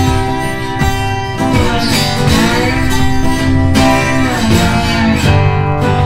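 Music led by guitar, steady throughout, with pitched notes that bend and shift like a melody.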